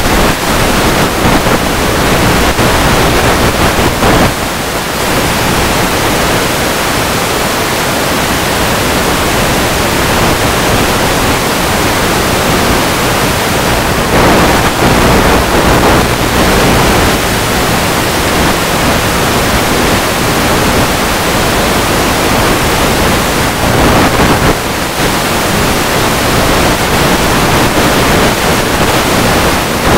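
Steady loud rushing of wind over the microphone of a camera riding on a Multiplex EasyStar 2 RC plane in flight, with a faint low hum underneath.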